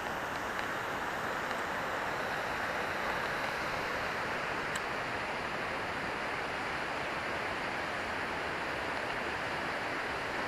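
Running water rushing steadily, an even, unbroken hiss.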